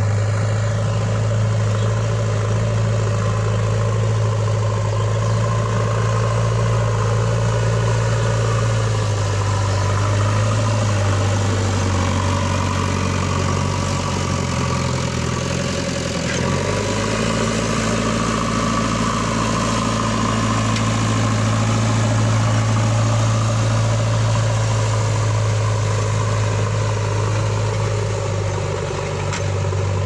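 JCB 3DX backhoe loader's diesel engine running steadily while its front loader bucket pushes and spreads soil. Its note shifts in the middle as the load changes, then settles again.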